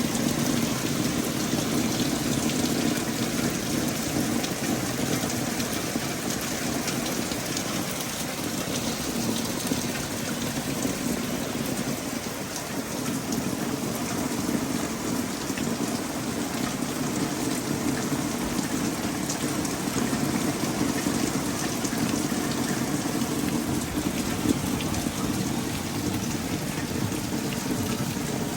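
Rain falling steadily: a continuous hiss of rain with scattered drops ticking on surfaces.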